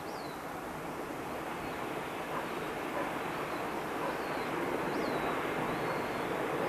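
Long freight train hauled by an EF210 electric locomotive approaching: a steady rumble of wheels on rails that grows gradually louder. A few short high squeaks sound over it.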